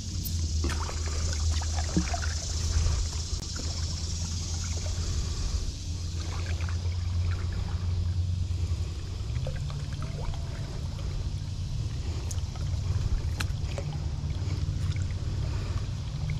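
Kayak paddle dipping and dripping in calm water, with small clicks and splashes, over a steady low hum that rises in pitch about nine seconds in.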